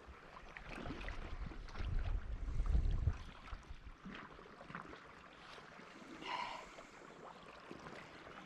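Wind buffeting the microphone: a low rumble that swells for about a second a couple of seconds in, over a faint outdoor hiss with a few light clicks.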